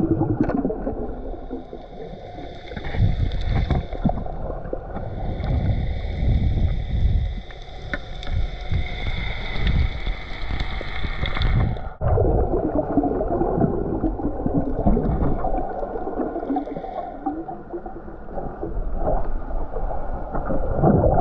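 Muffled underwater sound from a submerged camera: low sloshing and bubbling as water moves around it. A faint steady high whine runs through the first half and cuts off abruptly about twelve seconds in.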